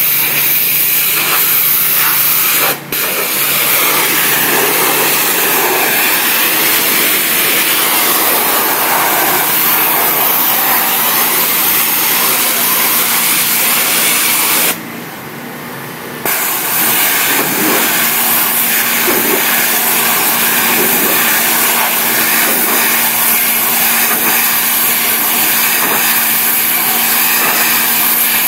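Hot-water pressure washer (3000 psi, 175 degrees) blasting an aggregate wall: a loud, steady spray hiss over the hum of the machine's engine and pump. The noise dips briefly about three seconds in and again for over a second midway.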